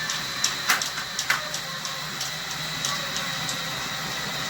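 Hand-cranked drain snake being turned in a toilet drain, its cable clicking and scraping in an irregular run of ticks, roughly two or three a second, with a few louder clacks in the first second and a half. The cable is working against something lodged in the drain.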